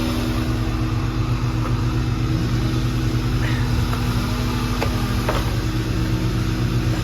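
Air-conditioning condenser unit running with a steady electrical hum, plus two light clicks about five seconds in.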